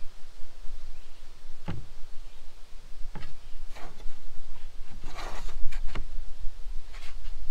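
Hands handling a knotty-pine board panel on a table: several light knocks of the wood and a brief scrape a little past halfway, over a steady low rumble.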